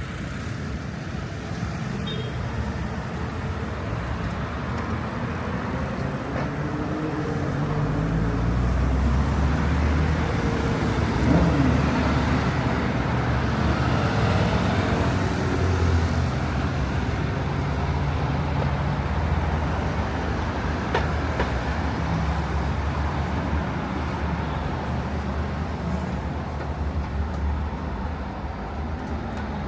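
Road traffic: vehicles passing with a steady tyre-and-engine rumble. The low engine hum swells and shifts in pitch about a third of the way in as a heavier vehicle goes by.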